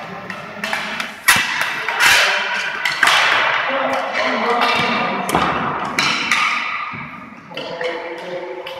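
Hockey sticks clacking against a tennis ball, against each other and against the sports-hall floor during unicycle hockey play. Sharp knocks come every half second to a second and echo around the hall, with players' voices calling out between them.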